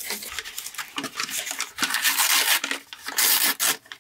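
Packing material rustling and crinkling in quick, irregular strokes as a shipped potted plant is unwrapped by hand.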